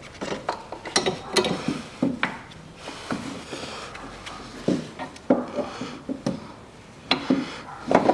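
Irregular clicks, clunks and scraping of a new engine mount being worked into place by hand against its metal bracket in the engine bay.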